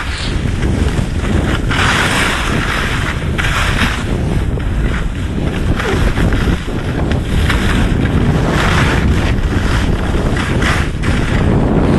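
Wind buffeting the microphone of a camera carried while skiing downhill: a loud, steady low rumble with a rushing hiss that swells and fades every second or two.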